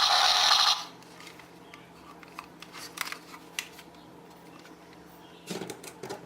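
A loud electronic toy sound cuts off abruptly under a second in. It is followed by quiet, scattered clicks and light knocks of plastic toys being handled, with a short cluster of knocks near the end.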